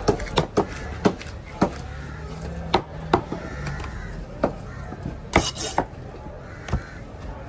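A large fish knife chopping through a yellowfin tuna on a wooden block: about ten sharp, irregular knocks. The loudest, about five and a half seconds in, is followed by a short high clatter.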